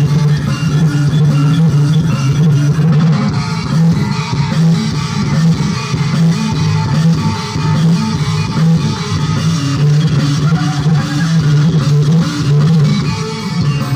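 Loud remix music with guitar and a heavy, pulsing bass line, played through a miniature sound system with 12-inch speakers.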